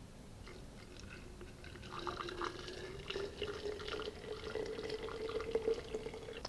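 Hot vinegar poured from a stainless steel saucepan through a funnel into a glass jar of blueberries, a faint liquid trickle that grows louder about two seconds in. Under it runs a low tone that rises slowly in pitch as the jar fills.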